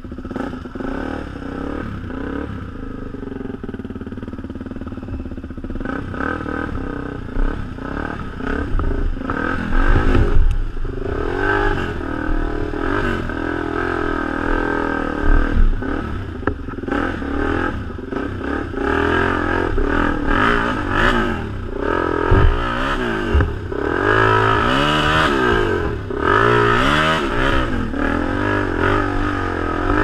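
Enduro motorcycle being ridden over rough trail, its engine pitch rising and falling again and again as the throttle opens and closes. It grows louder a few seconds in, with frequent short knocks and clatter from the bike over the rough ground.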